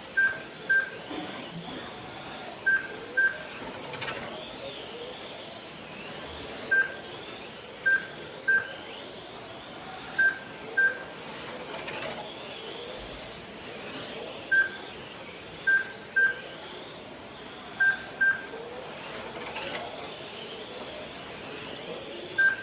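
Short electronic beeps from the lap-timing system, about twenty of them at irregular spacing and often two in quick succession, each marking a car crossing the timing line. Underneath, the high whine of GT12 electric RC cars rises and falls as they circle the track.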